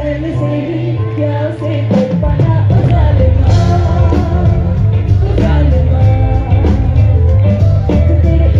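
Live band playing through a large PA with singing, heard from the crowd. The bass and drums drop out briefly, then the full band comes back in about two seconds in.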